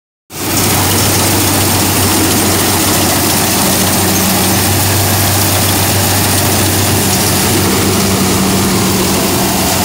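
Kubota rice combine harvester running close by while harvesting, its diesel engine and threshing machinery making a loud, steady drone with a constant low pitch under broad mechanical noise.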